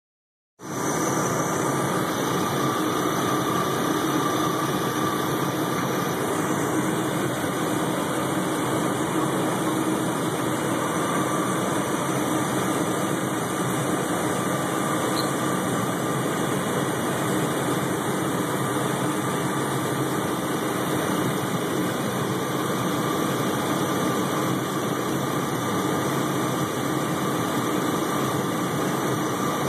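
1997 Chevy Blazer's 4.3-litre V6 idling steadily, with the belt-driven alternator giving a steady high-pitched whine over the engine's note. The owner links the whine to the idle sounding like it is about to stall under electrical load.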